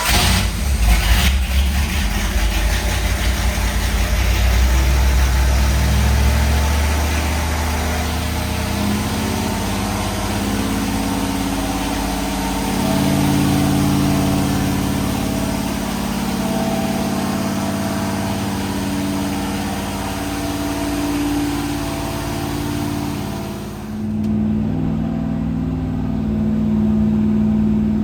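Ford 460 big-block V8 running on an engine dyno, its engine speed changing through the run and climbing noticeably about halfway through. The sound changes abruptly near the end.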